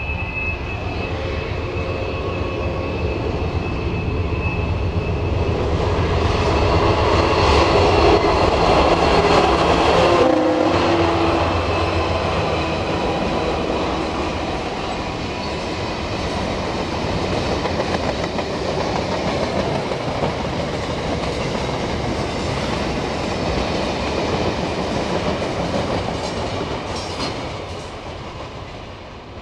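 Diesel locomotives hauling a freight train past, their engines running under load with a thin high whine early on; the sound is loudest as the locomotives go by and the engine pitch drops about ten seconds in. The wagons then roll past with steady wheel clatter, fading out near the end.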